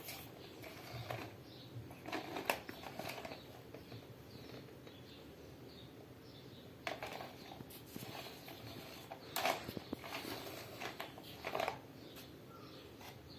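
Batteries being fitted into the battery compartment underneath a plastic toy dinosaur: scattered clicks and knocks a few seconds apart, with light handling rustle between them.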